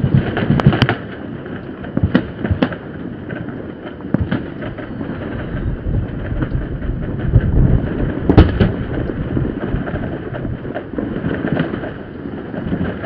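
Fireworks going off across the city: many bangs and crackles at varying distances over a continuous low rumble, with a loud cluster of bangs in the first second and another loud bang at about eight seconds.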